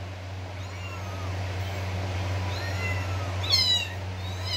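Very young kittens mewing: a few faint high mews, then a louder rising-and-falling mew about three and a half seconds in, with another beginning at the end. A steady low hum runs underneath.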